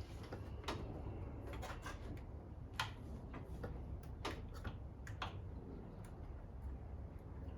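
Irregular light clicks and taps, about eight of them, from small metal parts and tools being handled on an engine head being cleaned, over a low steady hum.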